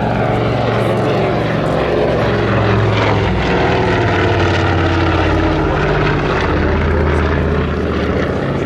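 Avro Anson's twin radial piston engines and propellers droning steadily on a display pass overhead. The engine pitch drops slightly about halfway through as the aircraft passes over and banks away.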